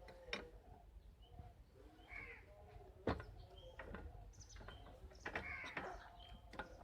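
Faint birds chirping in the background, with a few sharp clicks from tools being handled; the loudest click comes about three seconds in.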